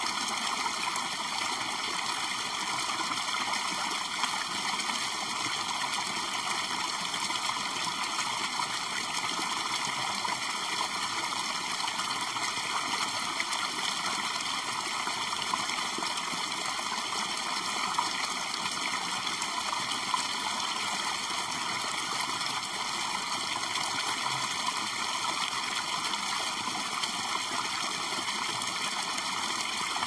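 Small stream spilling over a boulder in a low waterfall: a steady, even splashing flow of water.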